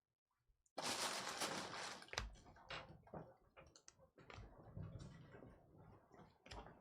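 After a moment of silence, a trading-card pack wrapper rustles loudly for about a second and a half. Then cards are handled and flicked through, with light clicks and soft rustles.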